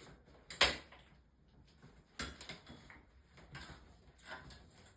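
A few short hard clicks and knocks, the loudest about half a second in and another about two seconds in, with lighter taps between: hard plastic or metal parts being handled.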